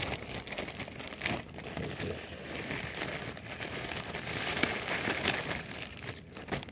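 Crinkling of a plastic chip bag as crushed chips are poured out of it into a zip-top plastic bag, the crumbs rustling and ticking against the plastic.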